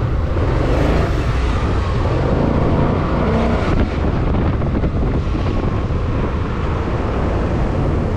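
Steady wind rush on the microphone over the engine and road noise of a BMW bike being ridden two-up.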